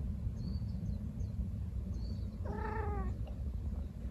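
A cat gives one meow, under a second long, about halfway through, over a steady low rumble.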